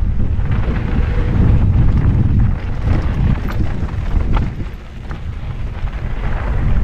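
Wind buffeting the microphone on a fast mountain-bike descent, with the tyres rolling over dirt and loose gravel and a few sharp rattles from the bike. The rumble eases briefly about five seconds in, as the bike leans through a berm.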